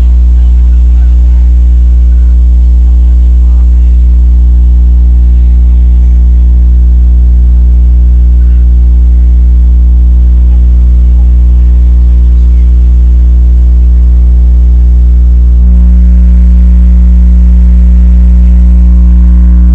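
Sound system's subwoofers putting out a very loud, steady low bass drone during sound-check tuning of the sub section. About 16 seconds in the tone changes, one note growing louder and a higher hum joining in.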